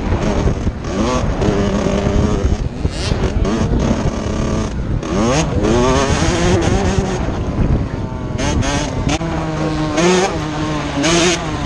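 Dirt bike engine revving hard under race load, its pitch climbing and then dropping back again and again as it shifts gears, with wind buffeting the helmet-mounted microphone.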